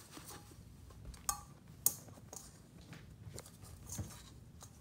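Faint scattered clicks and taps of a kitten's claws and paws on the stainless steel bowl it is sitting in, the two sharpest a little over a second in and just before two seconds.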